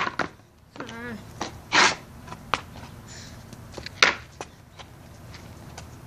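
Skateboard clacking on concrete during 360 shove-it attempts: a sharp clack at the start, another about four seconds in, and smaller knocks between. A brief vocal sound comes about a second in.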